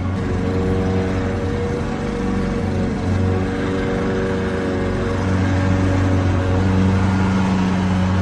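Petrol lawnmower engine running steadily at a constant speed, a low hum whose note wavers slightly.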